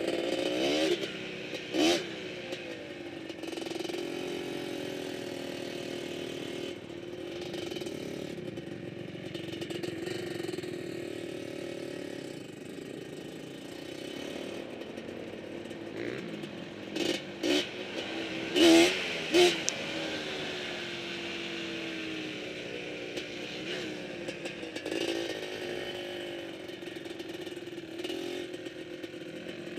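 Quad (ATV) engine running as it rides over sand, its pitch bending up and down with the throttle. A few short, loud bursts stand out, most of them between about 17 and 20 seconds in.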